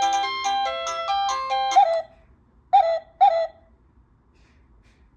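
Wireless doorbell chime playing an electronic melody of quick clean notes that ends about two seconds in, followed by two short electronic tones half a second apart.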